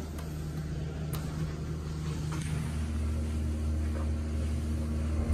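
Elevator car travelling, its drive motor giving a steady low hum that shifts to a slightly different pitch about two and a half seconds in.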